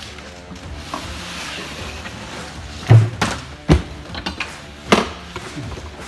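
Thumps and knocks from a portable fridge-freezer being handled on a table: one heavy thump about three seconds in, then a few sharper knocks, over steady background music.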